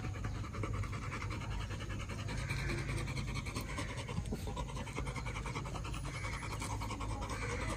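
Adult yellow Labrador retriever panting steadily with its mouth open.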